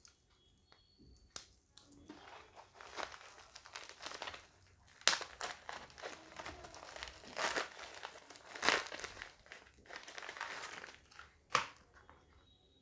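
Packaging being opened by hand: irregular crinkling and rustling of the wrapping, with a few sharper, louder crackles. It starts about two seconds in and stops shortly before the end.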